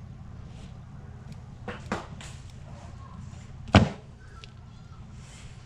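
A few sharp clicks and knocks of small objects handled on a workbench, the loudest about four seconds in, over a steady low hum.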